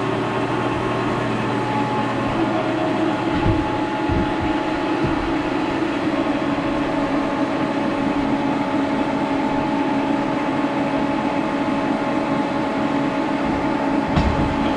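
Milling machine spindle running steadily, turning a coaxial centering indicator, with a geared hum of several steady tones. A few low knocks come around four seconds in and again near the end.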